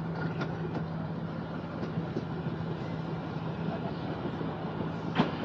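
Tram running along its track: steady running noise with a constant low hum and a few sharp clicks from the rails, the loudest near the end.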